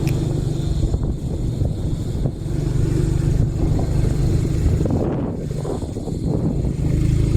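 Vehicle engine running steadily with road rumble while driving along, roughening for a moment about five seconds in.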